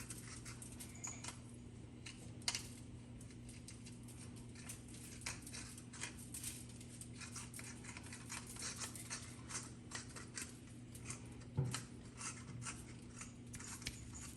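Pepper mill grinding: a long run of irregular scratchy clicks, over a steady low hum.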